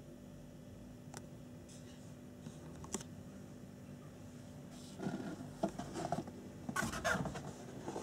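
Cardboard kit box being handled and its lid pulled off. A couple of faint clicks come first, then scraping and rustling of cardboard from about five seconds in, loudest near the end, over a faint steady hum.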